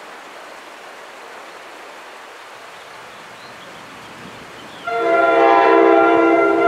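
An approaching NJ Transit passenger train's air horn comes in suddenly about five seconds in, a loud, steady chord of several notes, sounded as the warning for the grade crossing. Before it there is only a steady background hiss.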